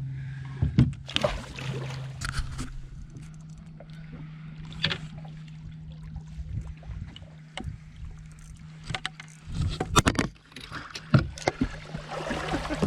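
Fishing boat sounds: a steady low motor hum with scattered sharp knocks and bumps of gear being handled in the boat.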